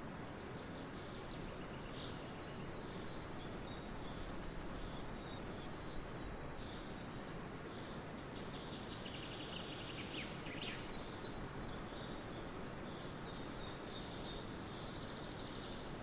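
Outdoor nature ambience: birds chirping and calling over a steady hiss of background noise, with a high insect drone. A quick run of chirps comes about two-thirds of the way through.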